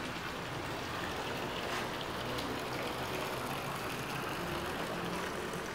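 Steady outdoor background noise with a low rumble, no single sound standing out.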